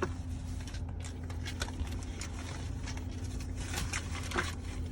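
Steady low hum inside a car cabin, with a few small clicks and rustles from handling near the dashboard.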